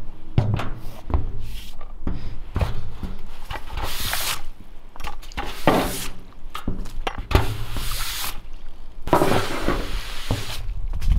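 Stiff push-broom bristles scraping across a wet corrugated steel shipping-container roof in several long hissing strokes, sweeping off meltwater and slush, with footsteps and knocks on the metal. The longest strokes come in the second half.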